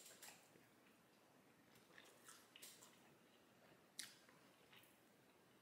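Near silence, broken by a few faint, short wet clicks of chewing and of a buffalo chicken wing being pulled apart by hand; the sharpest click comes about four seconds in.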